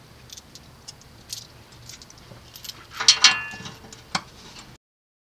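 Light metal clicks and clinks as a bolt is handled and fitted into a clip on the metal underseat storage box and seat bracket. About three seconds in there is a louder cluster of clinks with a short ring, then a single sharp click. The sound then cuts out.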